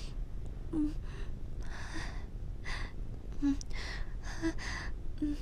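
A woman's soft, breathy gasps and sighs, a string of about eight short ones in a row.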